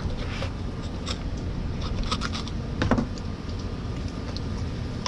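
A knife cutting around a yellowtail snapper's gills, then hands working the gills loose: scattered short crunches and clicks, the loudest about three seconds in, over a steady low rumble.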